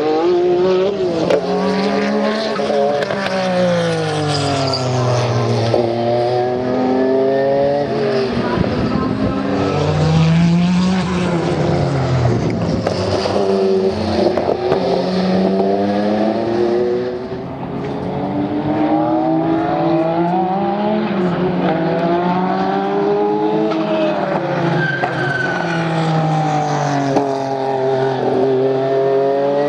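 Porsche 962 Group C race car's twin-turbocharged flat-six running hard on track. Its pitch rises and falls over and over every few seconds as it accelerates and slows, with a short drop in loudness a little past the middle.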